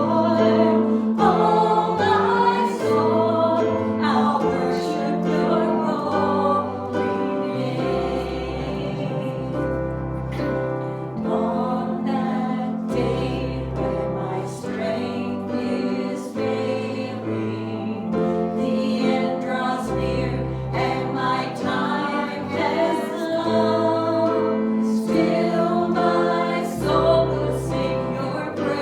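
Congregational worship music: a group singing a hymn or gospel song with instrumental accompaniment, a bass line and a steady beat.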